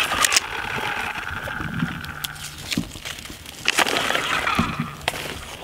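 Friction-powered plastic toy dump truck pushed over dirt and dry leaves, its flywheel whirring in two spells, with small clicks and crunches from the wheels and ground.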